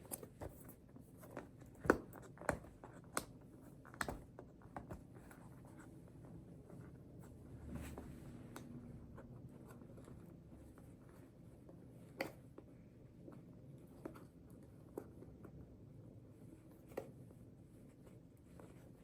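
Hands working at a product box and its packaging: faint scratching and rubbing, with scattered light clicks and taps, the sharpest about two seconds in.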